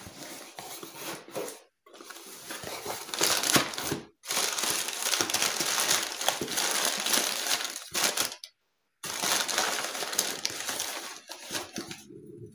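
Crumpled brown kraft packing paper being rummaged through by hand inside a cardboard box: loud crinkling and rustling in irregular stretches, broken by three brief silences.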